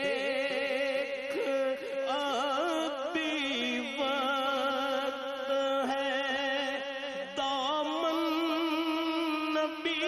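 A man singing a naat. He draws out long, wavering, ornamented notes without clear words, over a steady held drone.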